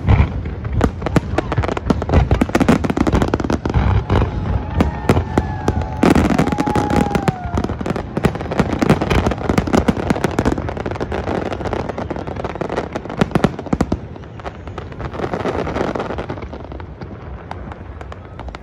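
Fireworks display: a dense run of bangs and crackling bursts going off in quick succession, thinning out over the last few seconds.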